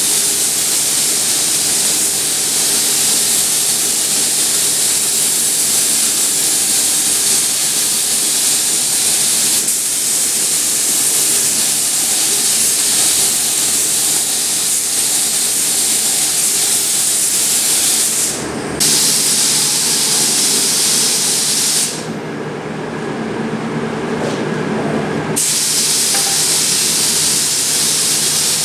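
Compressed-air spray gun spraying primer, a loud steady hiss. It stops briefly twice, the second time for about three seconds, as the trigger is let off.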